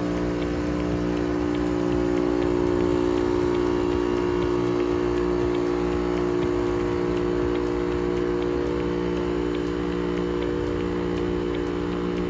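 Daihatsu Hijet truck's three-cylinder KF engine running steadily with a constant droning hum.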